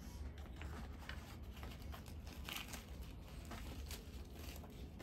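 Puffed, deep-fried bhature being pulled and torn apart by hand, in a run of faint, irregular crackles as the crisp bread breaks.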